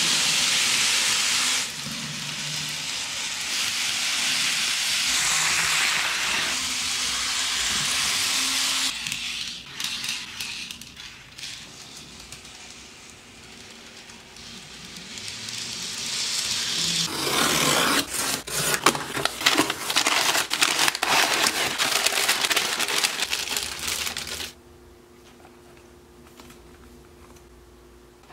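N scale model steam train running on track: a steady hiss of wheels and motor that fades in and out. In the second half it comes with a run of rapid clicking. It drops to quiet room tone a few seconds before the end.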